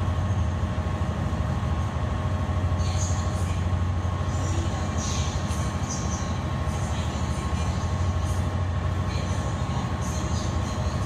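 Car ferry Aki's engines running steadily while underway: a deep, even drone with a faint steady whine above it, and light rattles now and then.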